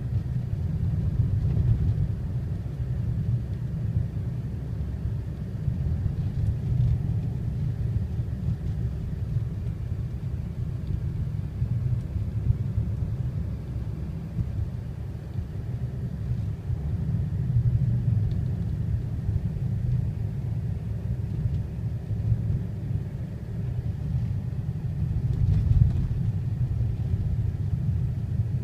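Car driving along a snow-covered road: a steady low rumble of engine and tyres that swells a little now and then.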